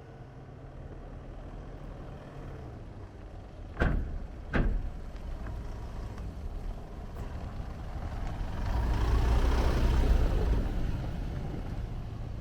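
Car engine running with a steady low hum. Two sharp knocks come about four seconds in, and later a rush of noise swells up and fades away.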